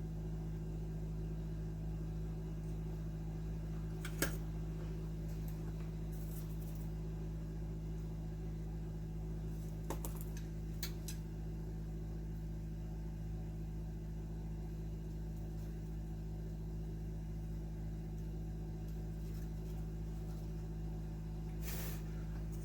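Steady low machine hum, with a few faint clicks and taps about four seconds in and again around ten and eleven seconds in.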